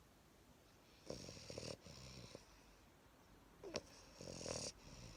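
Bulldog snoring quietly: two snoring breaths, the first about a second in and the second past the middle, with a short sharp sound between them.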